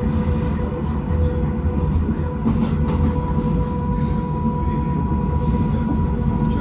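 Moscow metro train running on the rails: a steady low rumble of the wheels and running gear, with a constant high whine held throughout.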